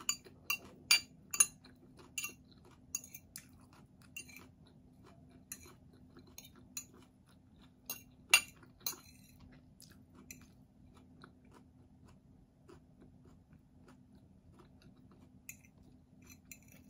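Close-mic chewing of crisp shredded unripe mango: a quick run of sharp crunches and mouth smacks in the first few seconds, then sparser ones, with the occasional clink of a fork on the plate.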